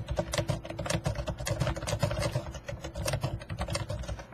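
Fast typing on a computer keyboard: a quick, unbroken run of keystroke clicks.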